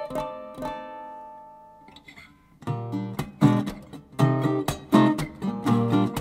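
Background music of acoustic guitar: picked notes ring out and fade almost to nothing about two seconds in, then lower notes and strummed chords come in louder.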